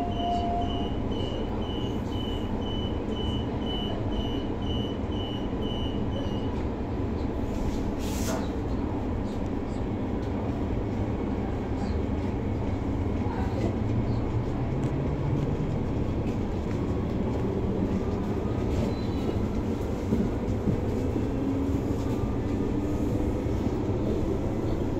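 Inside a Transperth B-series electric train pulling away: a door-closing warning beeps about twice a second for the first six seconds or so. Then the carriage rumbles steadily and the traction motors give a whine that rises slowly in pitch as the train gathers speed.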